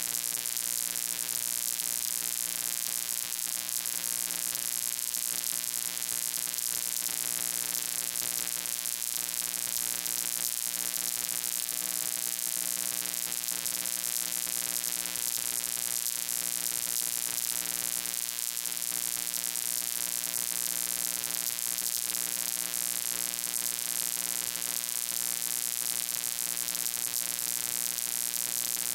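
Steady electrical hum with a strong hiss on top, unchanging throughout: audio line noise with no other sound.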